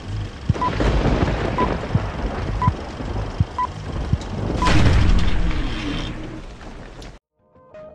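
Film countdown leader sound effect: a short beep about once a second over crackling, clicking film-projector noise and low rumble. About five seconds in, a louder rushing swell rises, fades and cuts off abruptly.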